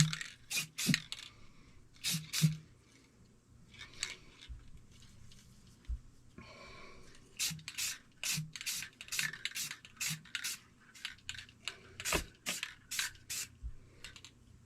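Aerosol spray paint going on in a quick run of short hissing bursts, with pauses between clusters.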